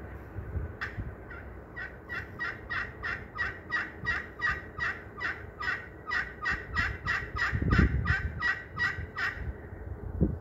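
Curly maple pot turkey call with a green slate surface, stroked with a wood striker: a few single notes, then a long, even run of short yelps, about three a second, imitating a hen turkey. A low rumble comes in about three-quarters of the way through.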